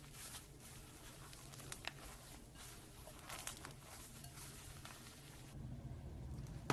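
Slime being squished and mixed by hand through loose polystyrene foam beads in a glass bowl: a faint, irregular rustling and crackly patter of the beads. Near the end the background shifts to a low hum.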